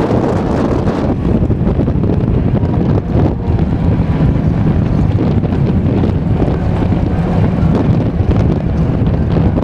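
Strong dust-storm wind buffeting the microphone in a loud, steady low rumble, with dirt-track race cars running on the clay oval underneath.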